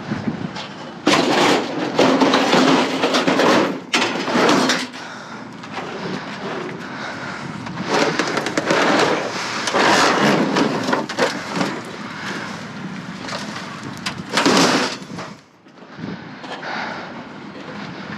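Handling noise in several loud stretches of rustling, scraping and knocking as discarded items in a dumpster are moved and rummaged through.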